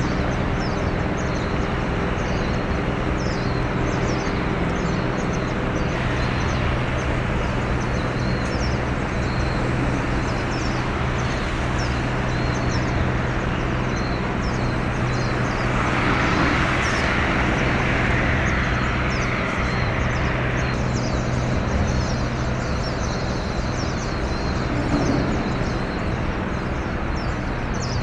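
Outdoor ambience: a steady low engine drone with small birds chirping over it again and again. From about halfway through, a louder rush of noise swells for several seconds, like a vehicle passing.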